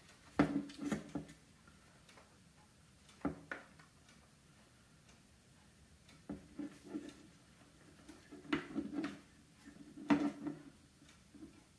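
Scattered light clicks and taps of a power-chair joystick controller's plastic shell and wiring being handled during reassembly, in a few short clusters with quiet between.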